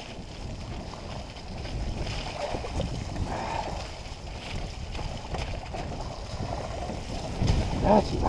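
Wind buffeting a helmet-mounted camera microphone over the rumble of mountain bike tyres rolling through wet mud on a descent, getting louder as the bike picks up speed.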